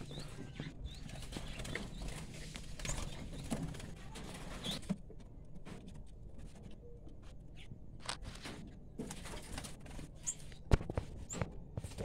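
Aviary ambience: a few brief, high chirps from small cage birds over a low background rumble, with scattered short clicks and taps, the sharpest one shortly before the end.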